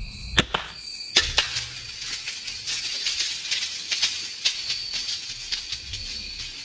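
Two sharp cracks in the first second or so, then a run of lighter clicks and crackles, over a steady high insect trill.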